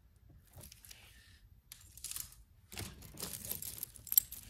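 Costume jewelry being handled: metal chains and beads rustling and clinking against each other as a tangled bunch is picked up. Soft at first, busier in the second half, with one sharp clink near the end.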